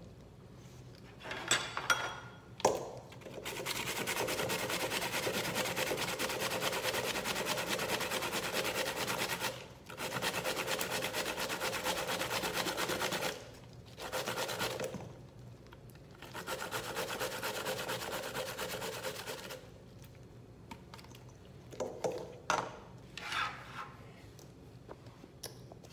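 Zucchini being grated on a flat hand grater: fast, steady rasping strokes in three long runs with two short pauses. A few sharp knocks and clatters come shortly before the grating and again near the end.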